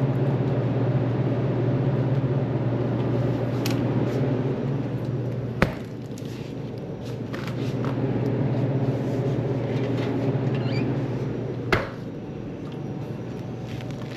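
Steady low engine drone of a vehicle heard from inside the cab, with two sharp clicks about six seconds apart.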